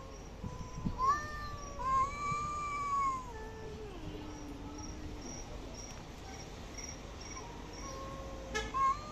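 Cats yowling in a face-off: long, wavering yowls in the first few seconds that sink into a low, drawn-out moan, then another rising yowl near the end. These are the warning calls of a standoff before a fight.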